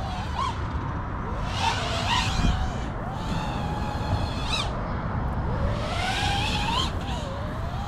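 FPV freestyle quadcopter's brushless motors (RCinPower GTS V2 2207 1860KV) whining over a rush of wind, the pitch gliding up and down again and again as the throttle is worked through the dives and climbs.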